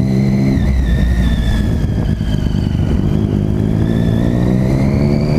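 Motorcycle engine with a newly fitted aftermarket exhaust, heard from the bike while riding. Its note drops about half a second in, then climbs gradually through the second half as the bike pulls away again.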